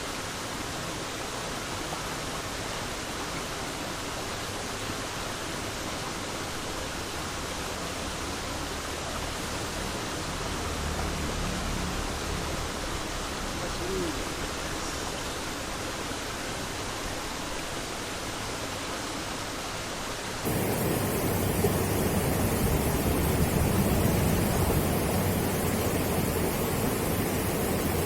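Steady rushing of flowing river water. About twenty seconds in it suddenly becomes louder and rougher, with more low rumble.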